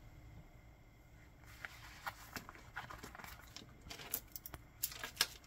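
Soft handling sounds of a leather watch roll being opened and a steel-bracelet watch being moved: a scattered run of light rustles and clicks that starts about a second and a half in and grows busier near the end.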